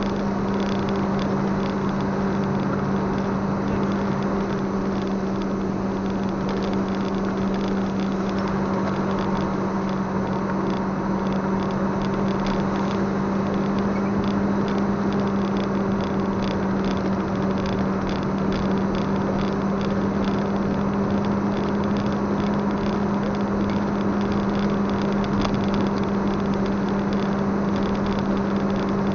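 Vehicle driving at a steady speed on a wet road, heard from inside the cab: an even drone with a constant low hum over tyre and road noise.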